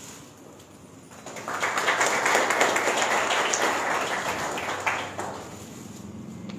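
A small group applauding briefly, starting about a second in and dying away after about four seconds.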